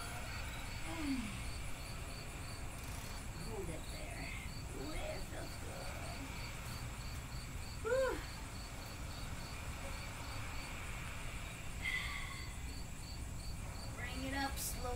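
Crickets chirping in a steady, regular rhythm of short high chirps, a few a second.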